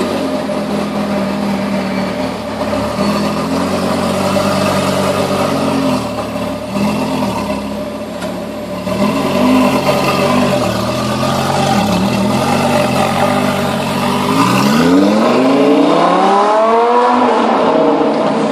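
Audi R8's 5.2-litre V10 through a modified exhaust, idling with a few light throttle blips, then revving hard: the pitch climbs steeply about fifteen seconds in and drops away near the end.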